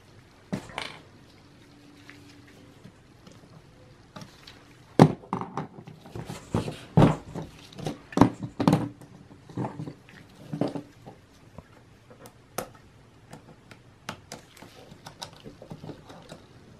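Irregular clicks, taps and knocks of small hand tools and loose parts against the metal insides of a Mac mini being taken apart, with a dense run of knocks in the middle and scattered clicks after.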